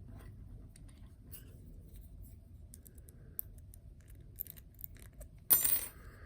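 Small metallic clicks and clinks from handling a just-opened brass padlock and its picks, then one louder metallic clatter about five and a half seconds in.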